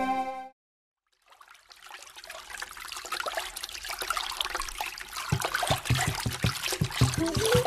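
Trickling, running water fades in after a moment of silence and grows louder, as a song's intro. About five seconds in, a regular low drum beat joins it, and a melody starts near the end.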